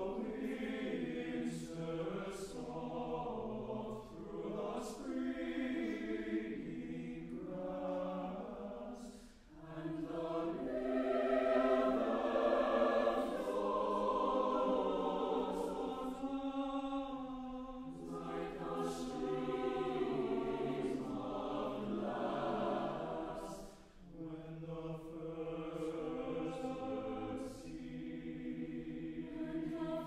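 University chorale singing a choral piece. The phrases swell to their loudest about twelve seconds in, with short breaks between phrases just before ten seconds and near twenty-four seconds.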